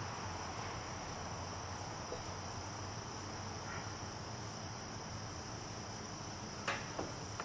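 Steady, unbroken high-pitched chirring of crickets, with two brief knocks near the end.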